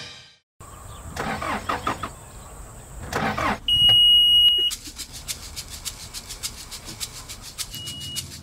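A work vehicle's engine starting and running. A shrill steady beep lasts about a second partway through, then comes a rapid, even clatter, with a second short beep near the end.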